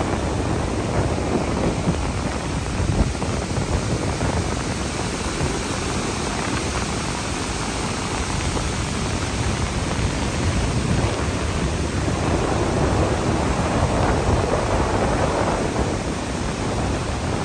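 Wind blowing across the microphone, a steady rushing noise that swells in gusts, over choppy reservoir water lapping against the dam wall.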